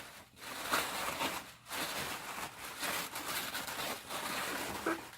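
Tissue paper rustling and crinkling in uneven stretches as packed clothing items are unwrapped.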